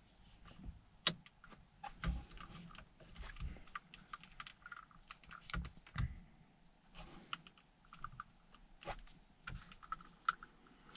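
Scattered light clicks and taps of hands working the steering-wheel paddle shifters while stick-on metal paddle extensions are pressed into place, irregular, with a few duller knocks among them.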